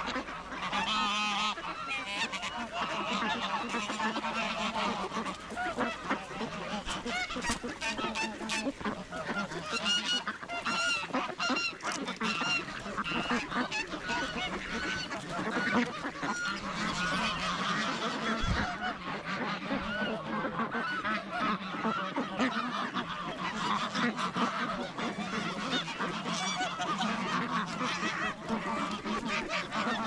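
A flock of domestic geese honking, many calls overlapping without a pause.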